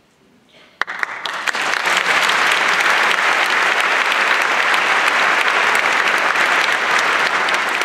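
Audience applauding in a concert hall: the clapping starts suddenly about a second in, swells quickly and then holds steady.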